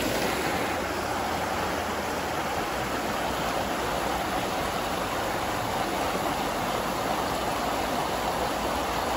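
Steady rushing of flowing water from a stream, holding an even level throughout.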